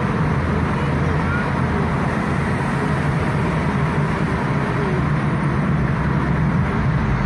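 Steady engine and tyre road noise heard from inside a moving car's cabin as it drives through a road tunnel.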